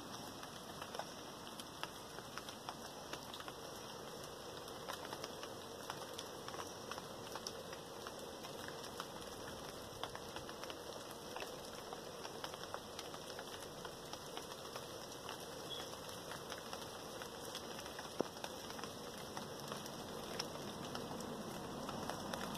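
Rain falling in a steady hiss, with many small drops ticking and pattering on surfaces; it grows a little louder near the end.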